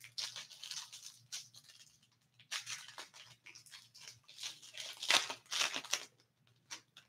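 Hockey card foil pack wrappers crinkling and cards rustling as they are handled, in several irregular bursts; the loudest comes about five seconds in.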